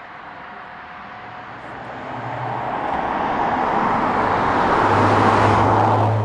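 Audi S4 sedan with its turbocharged V6 driving past: engine and tyre noise grow steadily louder as the car approaches, with a low steady engine note, loudest as it passes close near the end.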